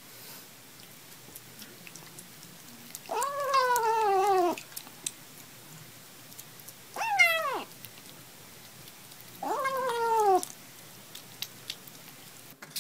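A kitten meowing three times while it eats, each call drawn out and falling in pitch; the first is the longest and the middle one the shortest.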